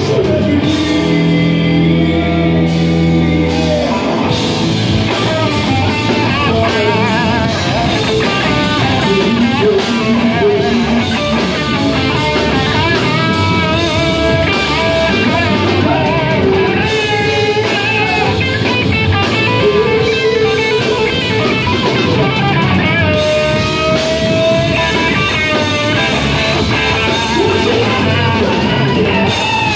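Live rock band playing loud with drum kit, bass guitar and electric guitar. A sung line comes near the start, then a lead electric guitar solo on a cherry-red SG-style guitar.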